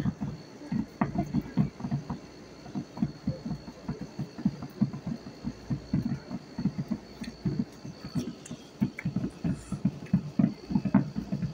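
Fireworks exploding in a rapid, irregular run of low booms, several a second.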